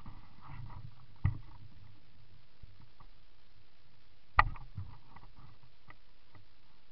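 Mountain bike rolling over a gravel trail: a steady low rumble with scattered small rattles and two sharp knocks as the bike jolts over bumps, the loudest about four seconds in.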